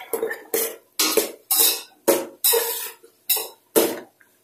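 A spoon scraping and clanking against the side of a metal cooking pot as chopped vegetables are stirred, in quick strokes about twice a second, stopping shortly before the end.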